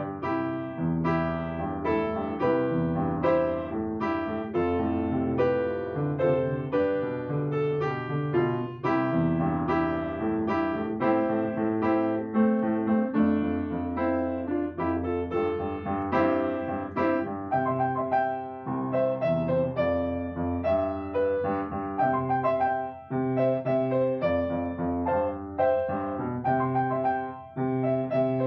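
Piano music: a solo piano playing a gentle piece in a steady, flowing stream of notes.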